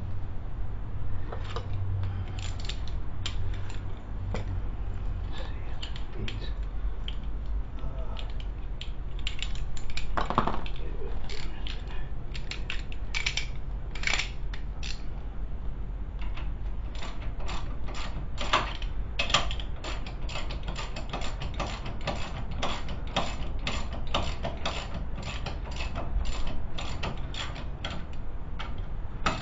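Hand ratchet wrench clicking as bolts are run in on a brake caliper bracket. The clicks come in scattered short runs at first, then in quick, almost continuous runs through the second half.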